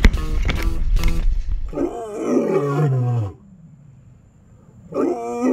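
Strummed guitar music ends about a second and a half in. A big cat then roars, the roar sliding down in pitch. A second roar starts near the end.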